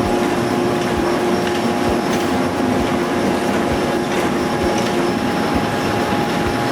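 Steady running noise of heavy machinery, with a constant hum and scattered low knocks.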